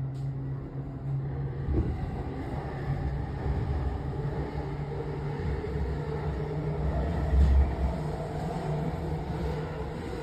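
Chuo Line commuter train running slowly, heard from inside the car: a steady low rumble of wheels on rail with a low hum, and a couple of low knocks, the loudest about seven and a half seconds in. The train is creeping to a safe spot after an emergency stop.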